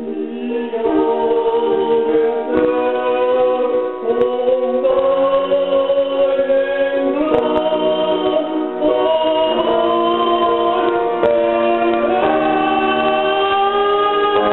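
Music: a choir singing held chords that change every couple of seconds.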